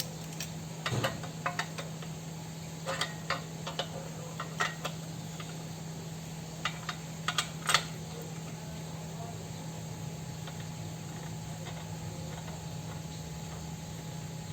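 Irregular metallic clicks and clinks of a three-jaw gear puller being fitted onto a bicycle crank and its centre screw turned, taking up tension. The clicks stop about eight seconds in, leaving a steady low hum.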